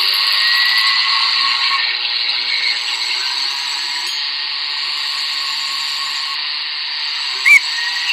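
Electric blender running steadily, heard as playback through small computer speakers, thin and without low end. A brief high squeak about seven and a half seconds in.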